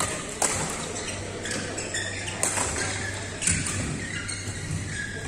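Badminton rackets striking a shuttlecock during a rally: three sharp hits, one near the start and two more about a second apart midway through, ringing in a large hall.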